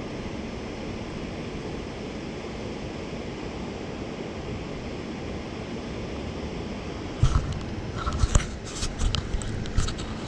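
Steady rush of river water. About seven seconds in, a cluster of sharp clicks and knocks with low thumps starts close to the microphone and lasts almost three seconds.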